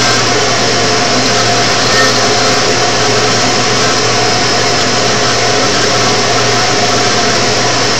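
CNC router spindle running steadily as its small engraving bit cuts grooves into a plexiglass sheet: a loud, even machine whine and hum with no breaks.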